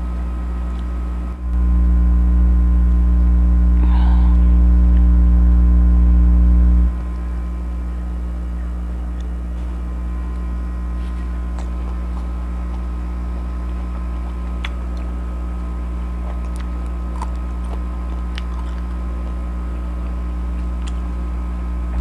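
Steady low electrical mains hum. It gets louder for about five seconds near the start, then settles back. Faint scattered clicks sound over it.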